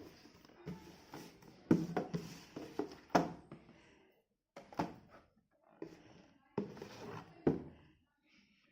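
A cardboard product box being opened and its contents handled: irregular knocks, clicks and rustling of packaging, with a few sharper thuds and short pauses between.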